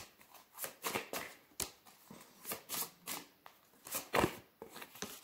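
Tarot cards being shuffled by hand: an irregular run of quick swishes and snaps of the cards, the loudest about four seconds in.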